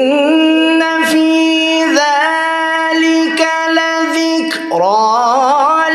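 A man reciting the Qur'an in melodic tajwid style, drawing out long held notes on one voice, with wavering vocal ornaments about two seconds in and again near the end and short breaths between phrases.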